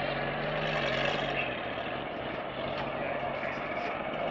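Lamborghini Gallardo V10 engine running at low revs as the car creeps past, a steady engine note that fades after about two seconds.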